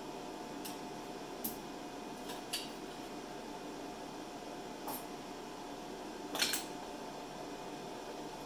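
A handful of light, sharp clicks and clinks as brass rifle cases and a clipboard are handled, the loudest a quick double click about six and a half seconds in, over a steady faint hum and hiss.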